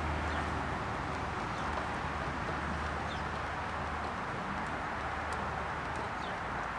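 Steady background hum and hiss, with a few faint short high chirps every few seconds.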